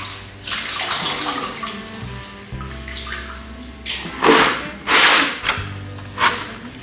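Brine splashing and streaming off handfuls of wet pickled radish greens as they are lifted out of a metal basin and dropped into a plastic basin, in several surges, the loudest about four and five seconds in. Background music with a low bass line plays throughout.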